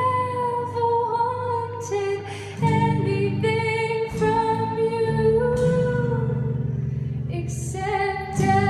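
Live band music: girls singing long held notes together, backed by acoustic guitar and drums.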